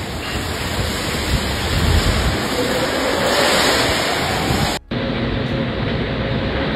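Severe thunderstorm wind and heavy rain making a loud, steady rushing noise. About five seconds in it cuts suddenly to another stretch of the same kind of storm noise, with a faint steady hum under it.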